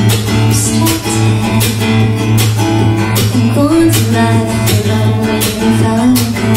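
Acoustic guitar strummed in a steady rhythm, chords ringing between the evenly spaced strokes.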